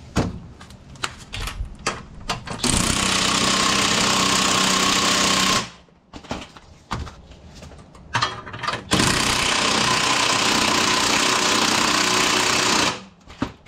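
Impact wrench hammering on the threaded rods of a coil-spring compressor, squeezing a new lift-kit coil spring: two steady runs, of about three and about four seconds, with clicks and clatter of the tools being handled before and between them.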